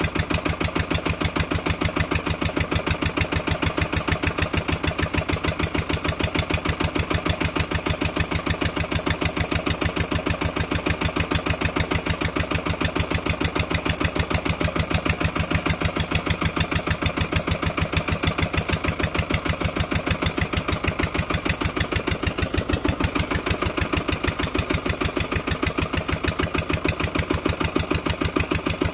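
Lister LD1 1.5 hp single-cylinder diesel engine running steadily while driving a Tarpen generator on its first test run, with an even, unchanging beat of firing pulses.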